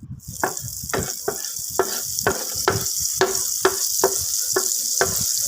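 Butter sizzling in a hot non-stick frying pan, the sizzle starting suddenly at the beginning. A spatula stirs and scrapes the pan about twice a second.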